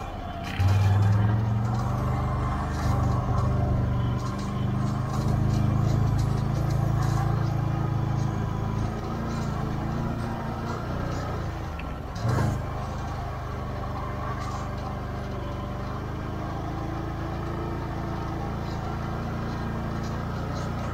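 Can-Am Outlander XMR 650 ATV's V-twin engine running as it is ridden, its level rising and falling with the throttle in the first half, then steadier and a little quieter. A single knock about twelve seconds in.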